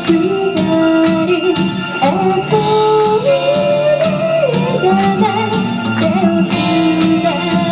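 Live music: a woman singing a slow melody with held, gliding notes over instrumental backing with a regular beat.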